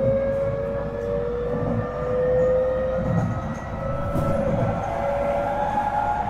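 Tsukuba Express TX-1000 series electric train heard from inside the car: its inverter-driven traction motors whine in several rising tones as the train accelerates, stepping up in pitch part-way through. The wheels rumble on the track beneath.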